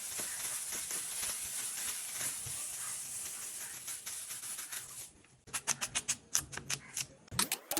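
Food frying in a hot pan with a steady crackling sizzle for chow mein. About five seconds in the sizzle stops, followed by a quick run of sharp clicks and clatters.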